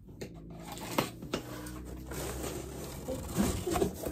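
A box cutter slitting the packing tape on a cardboard shipping box, with scraping and rustling of the cardboard and a couple of sharp knocks about a second in.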